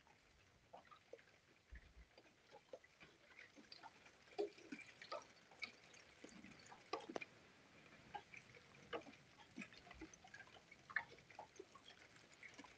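Faint, scattered raindrops tapping on hard surfaces, irregular single ticks a few times a second: the first drops of a rain shower.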